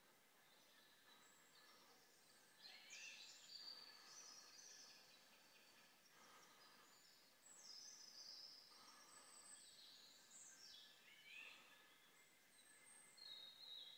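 Faint bird song: short high phrases of whistles and trills, separated by pauses, over quiet outdoor background hiss.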